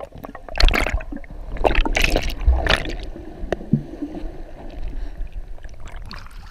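Sea water splashing and gurgling around a camera being dunked under the surface, with several sharp splashes in the first few seconds, then a duller muffled wash while the microphone is underwater.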